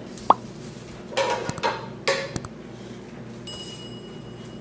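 Kitchen clatter of dishes and utensils being handled: a sharp knock, then two short bursts of clinking and knocking with some ringing. A thin steady high tone sounds for the last second or so.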